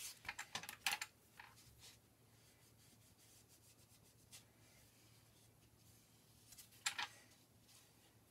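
Faint handling sounds of hands and a modelling ball tool on a work board: a quick run of small rubs and clicks in the first two seconds, then a sharper tap or two about seven seconds in.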